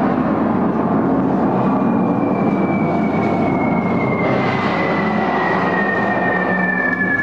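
Recorded air-raid sound effects playing in a wartime shelter tunnel: a loud, steady rumble, with a long whistle that starts about a second and a half in and slowly falls in pitch.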